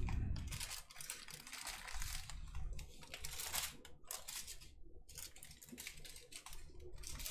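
Small plastic bags of diamond-painting drills crinkling and rustling in many short, irregular crackles as they are handled and laid down.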